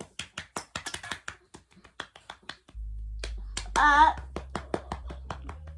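Dog eating dry kibble off the floor: a quick run of crisp crunching clicks, about five a second. A low steady hum comes in about three seconds in, and a short pitched sound that bends up and down is heard near four seconds in.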